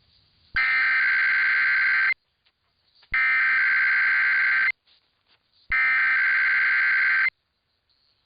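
Emergency Alert System SAME header: three identical bursts of buzzing digital data tones, each about a second and a half long with about a second between them. They carry the coded alert information, here for a Required Weekly Test.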